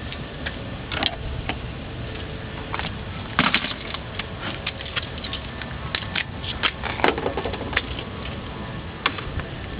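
Irregular light clicks, taps and knocks of hand tools and car parts being handled and refitted, with a few sharper knocks about three and a half and seven seconds in.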